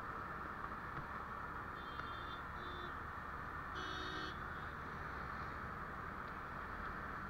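Steady wind and road noise from a motorbike moving through city traffic, with short vehicle-horn beeps about two seconds in and again about four seconds in.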